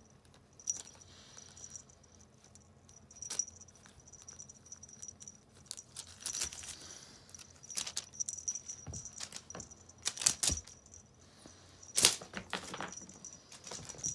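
Small bell on a Russian Blue kitten's collar jingling on and off as the kitten pounces and bats at a feather wand toy, with scattered light knocks and rustles; the loudest knocks come about two thirds of the way in and again near the end.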